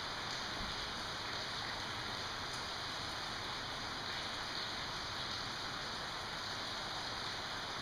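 Steady hiss of even background noise with no distinct events, close to the sound of rain.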